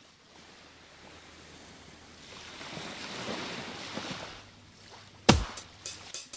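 A rushing wash of noise, like surf, that swells over about three seconds and fades away. About five seconds in, the dance track starts with a few loud, sharp beats with deep thumps.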